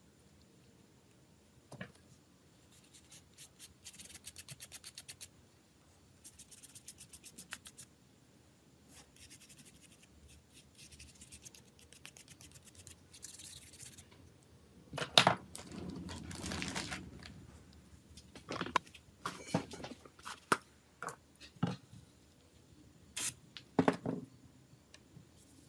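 Small-parts bench work on a mobile phone: two short runs of rapid fine scratching strokes, then louder scraping, then a series of sharp clicks and taps.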